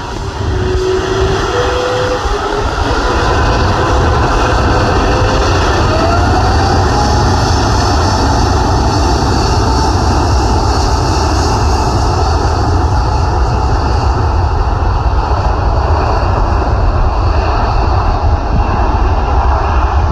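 Jet engines of an Airbus A350, Rolls-Royce Trent XWB turbofans, making a loud steady roar. Over the first several seconds a whine climbs in pitch as the engines spool up.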